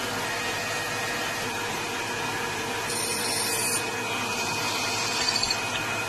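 Metal lathe running steadily, its carbide-insert tool cutting grooves into a spinning metal bar: a constant machine whine over the noise of the cut.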